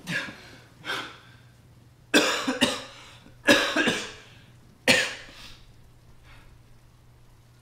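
A man coughing hard in about five bouts, some of two or three coughs in quick succession, with the loudest in the middle; the coughing stops about five and a half seconds in.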